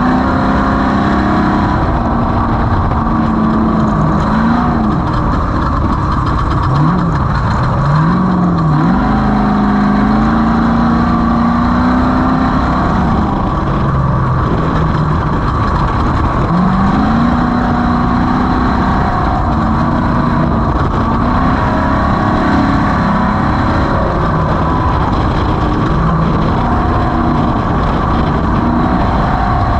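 Off-road race vehicle's engine running hard, its pitch rising and falling again and again as it accelerates and backs off, over a constant loud rush of noise.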